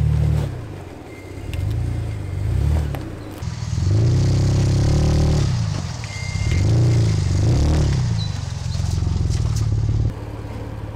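Jeep Wrangler's engine working under load while rock crawling, revving up and easing off several times as the Jeep climbs over a rock. The engine drops back near the end.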